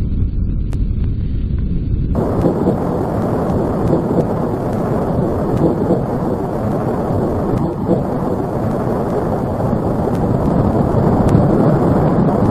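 Strong wind from a fire tornado rushing and buffeting the microphone in a steady, dense rush of noise. About two seconds in, it turns louder and brighter.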